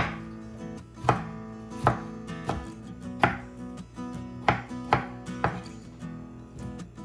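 Kitchen knife chopping a tomato on a wooden cutting board: about seven sharp knocks at irregular intervals of roughly half a second to a second, over soft acoustic guitar background music.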